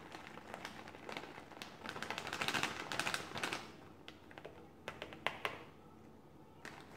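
Shredded cheddar cheese poured and shaken from a plastic zip bag into a bowl of chili: the bag crinkles while the shreds fall in a rapid run of light ticks. The ticks are thickest around two to three and a half seconds in, then thin out to a few scattered clicks.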